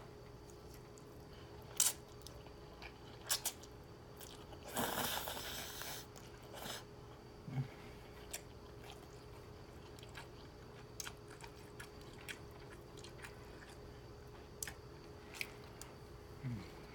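Eating noises of noodles with beef and broccoli: chewing and mouth clicks, with a noisy slurp of about a second roughly five seconds in.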